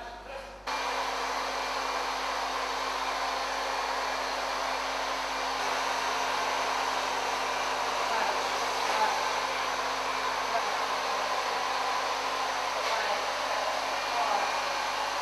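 Blow dryer running steadily, a loud even rush of air with a faint hum underneath. It cuts in abruptly under a second in.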